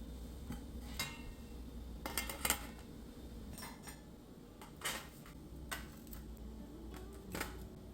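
Metal kitchenware clinking and knocking as it is handled: about half a dozen separate light strikes, with a louder cluster about two seconds in.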